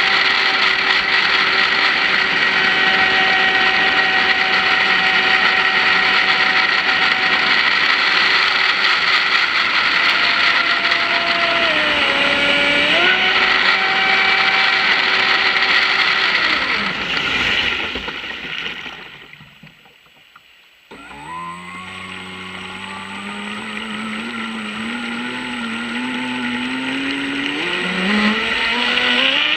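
Brushless electric motor of an offshore twin-hull RC boat running fast, a steady high whine over a rushing hiss, with a short dip in pitch about 12 seconds in. About two-thirds through, the throttle comes off and the whine falls away almost to quiet, then the motor winds back up with a steadily rising pitch toward the end.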